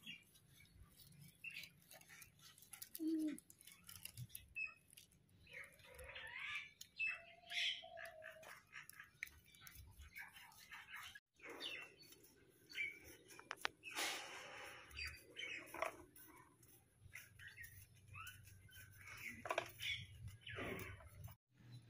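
Faint birds chirping on and off, with scattered small clicks and knocks.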